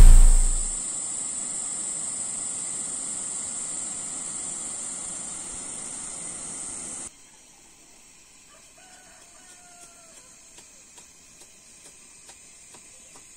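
A loud hit at the very start, then a steady rushing noise with a high, even whine above it, which cuts off suddenly about seven seconds in. A rooster then crows once, faintly, with a few light ticks after.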